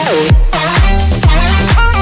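Electronic dance music with a steady kick-drum beat, about two beats a second, and synth melody notes, with a short falling synth sweep at the start.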